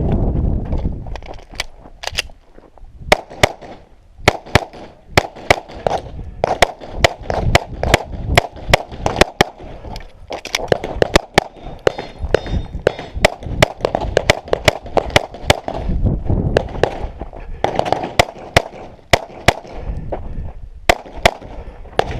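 Pistol shots fired during a timed USPSA stage: many sharp, loud cracks in quick strings, broken by short pauses between strings.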